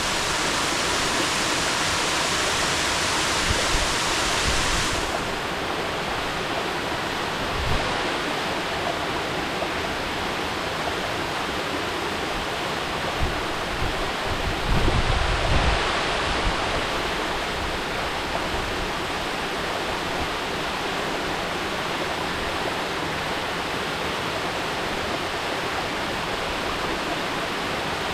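Mountain waterfall: a steady, dense rush of falling water. The hiss at the top grows a little duller about five seconds in, and a few brief low thumps come around the middle.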